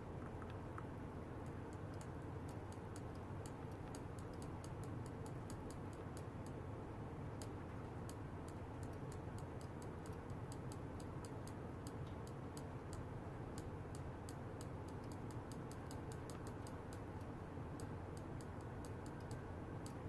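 Steady low hum with a fast, irregular run of faint, high-pitched clicks, several a second.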